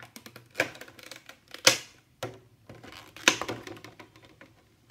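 Clear plastic packaging handled and pulled apart: a thin plastic bag and a clear plastic insert crinkling and crackling in irregular bursts, sharpest about a second and a half in and again just after three seconds.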